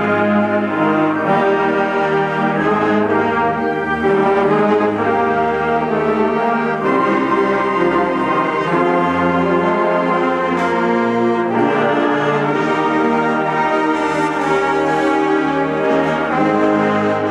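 Orchestral background music with sustained brass chords.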